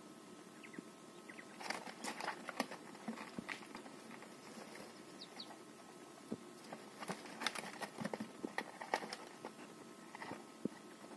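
Quail pecking and scratching about in a hay-lined cardboard box: quick irregular taps and rustles, in two busier spells about two and seven seconds in.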